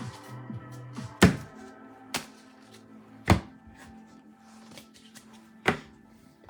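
Background music with four sharp knocks from trading-card boxes being handled and set down on a table.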